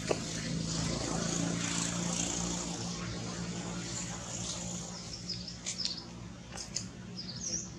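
A low motor hum swells over the first second or two and slowly fades, over outdoor background noise. Near the end come a few short high chirps and light clicks.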